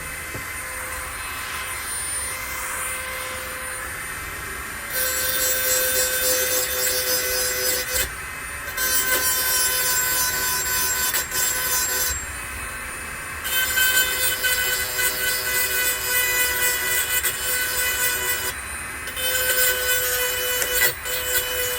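Power grinder running steadily while it grinds the cutting edges of hedge trimmer blades: four separate grinding passes, each a loud, hissy scraping of the spinning tool against the steel teeth, with short gaps where only the motor's hum is heard.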